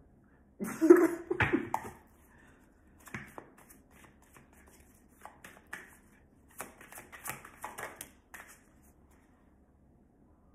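A tarot deck being shuffled by hand: a series of short papery flicks and slaps of the cards, with a louder burst of card noise about a second in.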